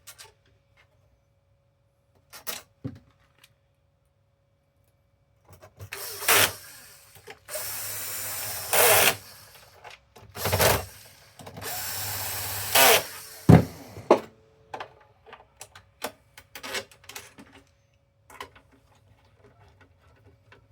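Electric screwdriver running in two steady bursts of about two seconds each, driving screws during console reassembly, with clicks and knocks of parts being handled around them.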